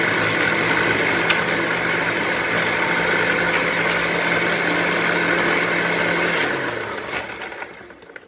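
Electric mixer grinder motor running at full speed, grinding soaked almonds and water into a paste in its steel jar. About six and a half seconds in it is switched off and its whine falls as it spins down.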